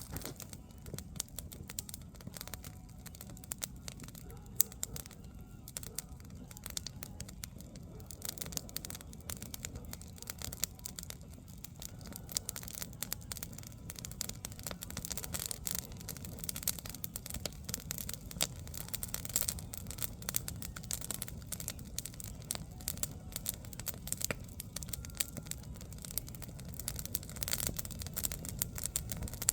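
Wood campfire crackling, with dense irregular pops and one sharper, louder pop about four and a half seconds in. The crackling gets busier about halfway through, over a low steady rumble.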